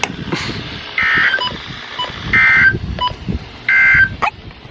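Three short bursts of EAS SAME digital data tones, a buzzy warble about a second and a half apart over a background of hiss. These are the end-of-message code that closes a NOAA Weather Radio severe thunderstorm warning.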